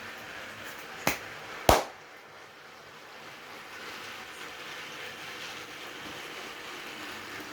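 Battery-powered Thomas & Friends Trackmaster Nia toy engine running along its track, hauling six trucks, with a steady whirr and rattle. Two sharp clicks come about a second and a second and a half in, the second the louder.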